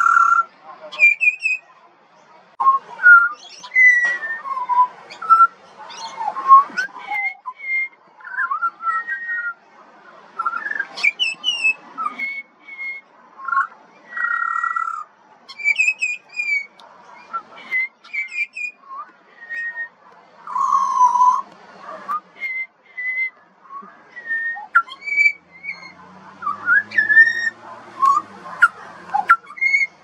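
Juvenile pied butcherbird singing: a run of short, clear whistled notes, some sliding up or down in pitch, in quick phrases with brief pauses between them.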